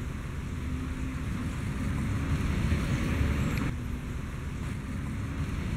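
Outdoor background noise: a steady low rumble with wind buffeting the microphone. The sound changes abruptly a little past halfway through, at a cut between two outdoor recordings.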